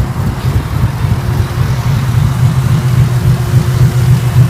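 2014 Ford Mustang's 3.7-litre V6 idling, with the uneven, loping idle that a ghost cam tune is made to give. It sounds through long-tube headers, an H-pipe and a muffler-deleted exhaust.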